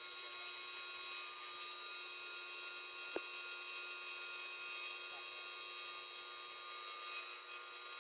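CNC milling machine running steadily while cutting, with a high-pitched whine of several steady tones, and one sharp click about three seconds in.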